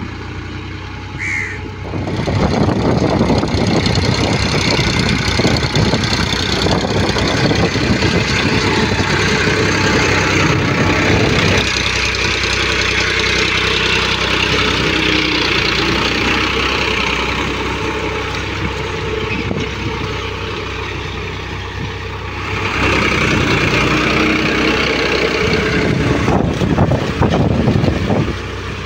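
Powertrac 434 tractor's three-cylinder diesel engine running under load while pulling a disc harrow through wet soil. It grows louder and rougher about two seconds in and again near the end.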